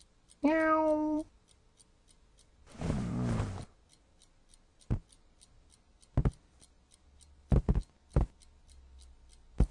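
A cat meows once, about half a second in, then gives a rough, raspy sound around three seconds. Several sharp clicks and knocks follow, some in quick pairs, over a faint, fast, even ticking.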